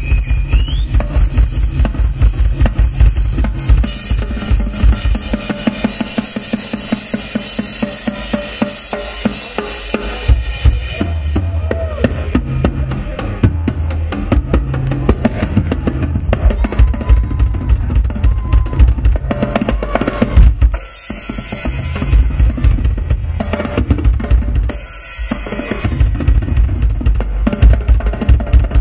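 Rock drum kit played live in a solo: fast rolls around snare and toms over rapid bass drum strokes and cymbal wash, broken twice by short pauses late on.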